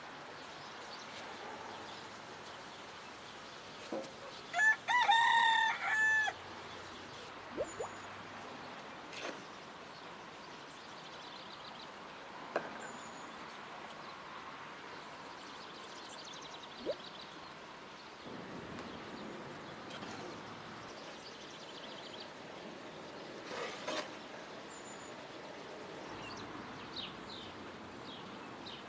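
A rooster crows once, about five seconds in. Around it are a faint steady outdoor background, a few short clicks and small high bird chirps.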